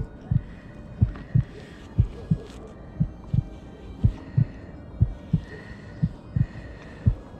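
Slow heartbeat: low thumps in pairs, about one pair a second, over faint sustained high tones.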